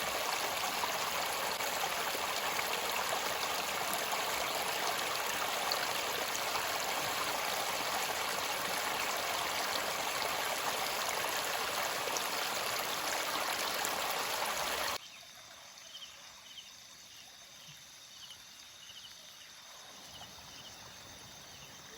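River water rushing steadily for about fifteen seconds, then cutting off abruptly to a much quieter background of flowing water. A faint, evenly repeated chirping comes about twice a second in that quieter part.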